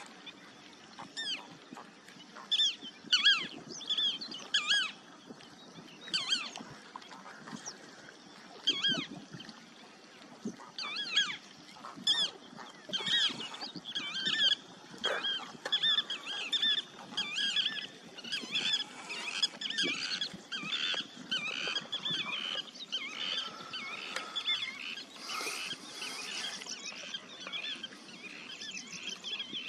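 A flock of wetland birds calling: many short, pitched calls, scattered at first and then coming almost without a break through the second half.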